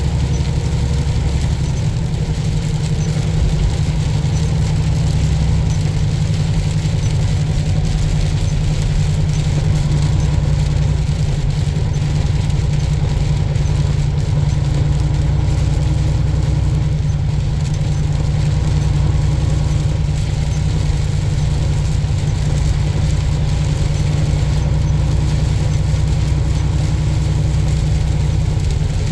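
Semi-truck's diesel engine running steadily while driving, a constant low-pitched engine sound with road noise over it, heard from inside the cab.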